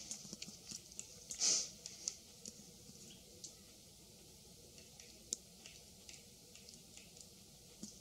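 White-backed woodpecker chiselling into a tree trunk: irregular light taps and clicks, thickest in the first two seconds and sparser after, with one louder burst about a second and a half in.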